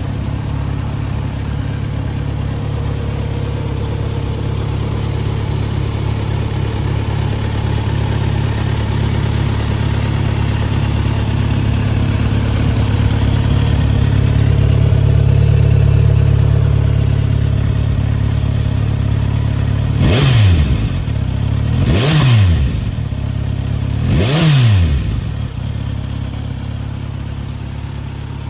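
Kawasaki Z900RS inline-four engine breathing through a Yoshimura hand-bent one-piece exhaust, idling steadily. About two-thirds of the way in it is revved in three quick throttle blips about two seconds apart, each rising and falling in pitch, then settles back to idle.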